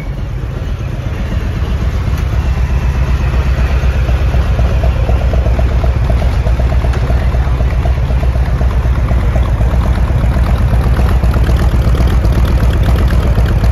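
Harley-Davidson Road Glide Special's Milwaukee-Eight V-twin idling steadily through aftermarket mufflers with oversized tips, a fast low-pitched pulsing that grows a little louder over the first few seconds.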